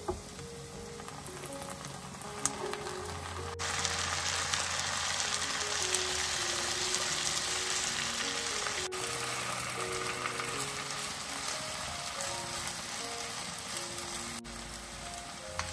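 Diced potatoes, onion and tomatoes sizzling in oil in a non-stick frying pan while a spatula stirs them, the sizzle getting louder about four seconds in.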